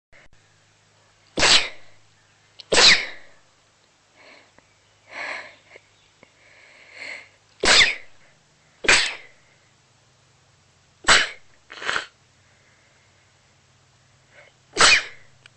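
A person sneezing repeatedly, deliberately induced: about seven loud, sharp sneezes, two of them coming in quick pairs, with softer breathy sounds between.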